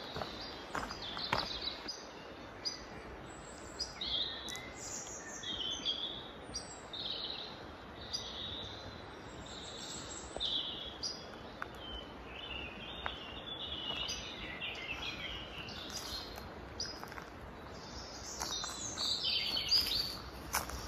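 Woodland birdsong: several small birds chirping and singing in short phrases over a steady background hiss.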